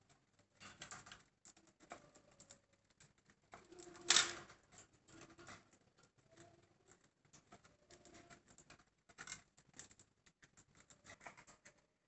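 Budgerigars pecking and husking seeds in a seed tray: soft, irregular rapid clicks and crackles, with one louder brief rasp about four seconds in.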